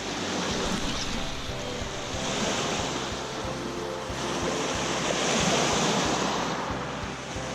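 Sea waves washing against the shore, a steady rush that swells up twice.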